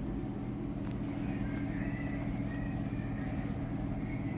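Steady low mechanical hum of restaurant ventilation or air-conditioning, even and unchanging.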